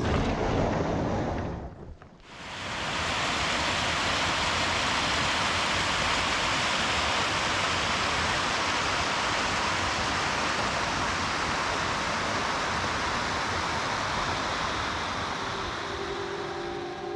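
A mountain stream rushing over rocks: a steady, even rush of water that starts about two seconds in, after a brief cut, and holds to the end.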